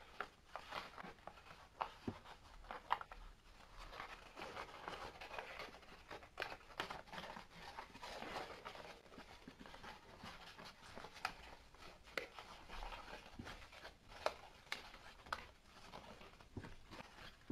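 A sheet of paper being folded and creased by hand, with soft rustling and scattered sharp crinkles and taps as a flap is pushed inward.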